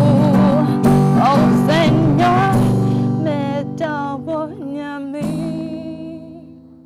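A woman singing, accompanied by her own strummed acoustic guitar, ending on held notes; a final guitar chord is strummed about five seconds in and rings out, fading away.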